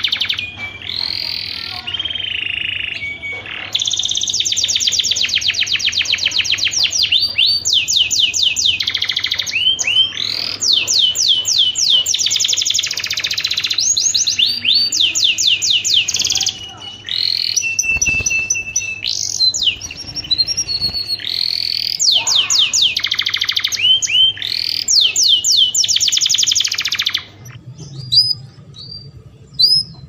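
Domestic canary singing its breeding-season song: fast trills of rapidly repeated notes and whistled glides in long phrases. The song stops a few seconds before the end, leaving only a few short chirps.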